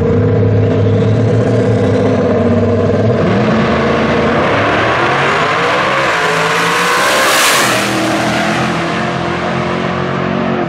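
Drag racing car engines at full throttle on a run down the strip. The revs climb, the noise builds to its loudest about seven seconds in as the cars pass, then the pitch falls as they pull away.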